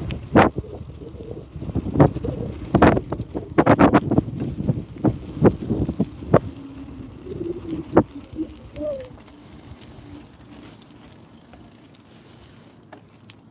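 Bicycle rattling and clunking as it rolls over a rough paved path, with a low rumble underneath. The sharp knocks come thick and irregular for the first eight seconds or so, then die away.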